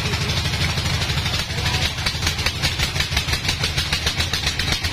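Sawmill band saw machine running steadily, a low rumble with a fast, even pulsing that becomes stronger about two seconds in, as the log is brought up to the blade.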